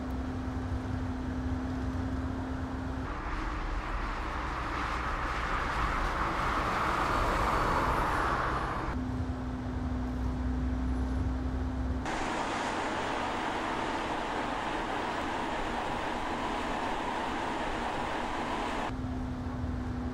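Mercedes-Benz B-Class Electric Drive driving, heard as tyre and road noise with no engine note, with traffic around. It comes in several shots that cut abruptly every few seconds. A steady low hum runs through some of the shots, and the noise swells louder in one of them.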